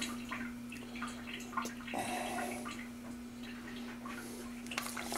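Quiet kitchen: a steady low hum with a few faint clicks and small handling noises.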